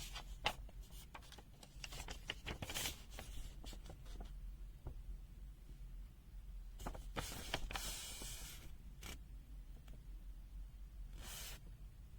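Scattered light clicks and brief rustling hiss of a handheld multimeter being handled at close range, with one sharper click about half a second in and a longer rustle near the middle.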